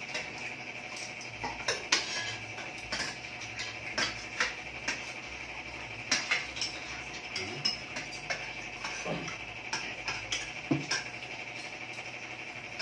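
Kitchen utensils clinking and knocking against pots and dishes in scattered, irregular sharp clicks, over a steady high-pitched hiss.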